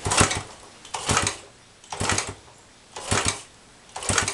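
1975 Honda CB125S single-cylinder engine being kick-started five times, about a second apart, each kick spinning it over briefly without it catching, choke on. It won't fire because of a bad spark plug.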